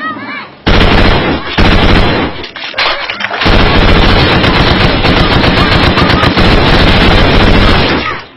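Loud, rapid machine-gun fire laid over the scene as a sound effect, starting about a second in, easing briefly a little after two seconds, then firing on without a break until it cuts off near the end.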